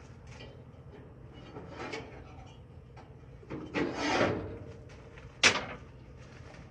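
Birmingham Stove and Range cast iron skillet being wiped down and handled on a gas grill's grate, excess seasoning oil being wiped off: a few rubbing, scraping sounds, the longest about four seconds in, then a sharp knock about five and a half seconds in.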